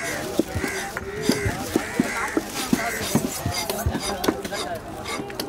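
Fish-market din: voices talking over repeated sharp knocks of chopping, roughly one to two a second at an uneven pace.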